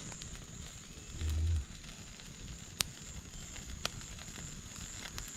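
Campfire burning with a faint crackle and two sharp pops about three and four seconds in, over a steady high insect drone. A short low thump comes a little over a second in.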